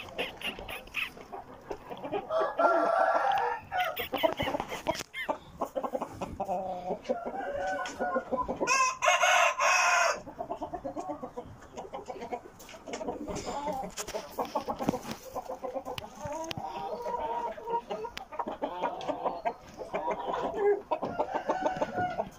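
Aseel rooster clucking and calling, with one loud crow lasting about a second and a half around nine seconds in.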